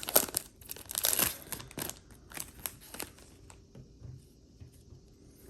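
Trading card pack wrapper being torn open and crinkled by hand, crackling bursts in the first couple of seconds that thin out to faint rustles.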